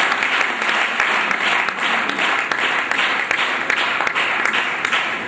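Audience applauding in welcome: many hands clapping steadily.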